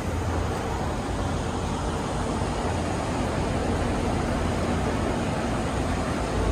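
Steady outdoor noise with a heavy low rumble and no distinct events, getting slightly louder toward the end.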